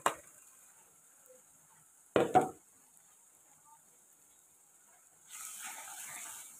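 A short metal clatter about two seconds in. From about five seconds in, ground spices and browned onion sizzle in hot oil in a metal pot as a spoon stirs them.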